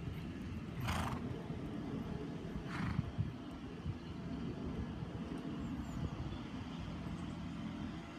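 Wind rumbling steadily on the microphone, with two short breathy hisses about one second and three seconds in.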